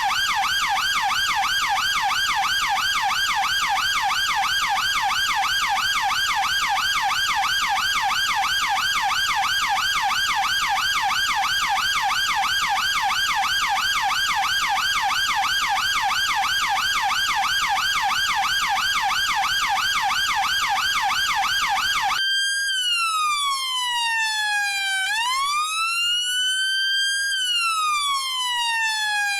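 UK police siren sounding a fast yelp, the pitch warbling rapidly up and down. About three-quarters of the way through it switches to the slow wail, gliding down, up and down again over several seconds.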